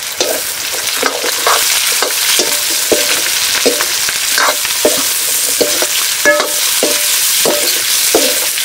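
Buffalo dry meat curry sizzling in hot oil in a pan, stirred with a metal spoon that scrapes and clinks against the pan in a steady rhythm, two or three strokes a second.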